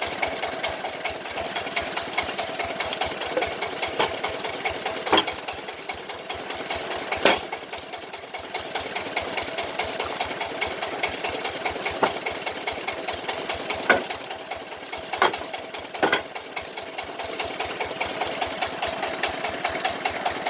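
A small machine motor running steadily with a fast, even pulse while a wooden drum body is worked, with several sharp knocks scattered through.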